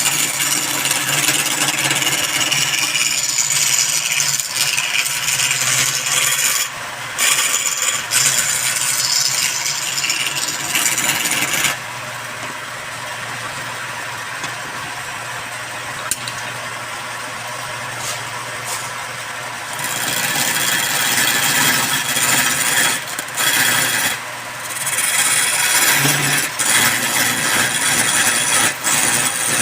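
Woodworking machine cutting into wood, a continuous rasping and rattling that goes quieter for several seconds in the middle before picking up again.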